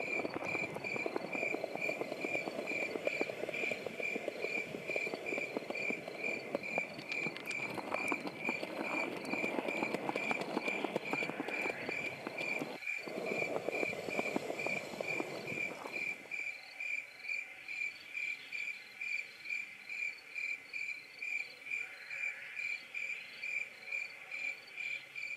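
A cricket chirping in a steady, evenly spaced rhythm, high-pitched, with a low background rumble that falls away about two-thirds of the way through.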